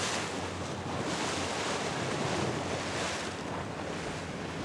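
Water rushing past a boat under way, with the steady low drone of its engine and wind on the microphone. The rushing hiss swells and eases a few times.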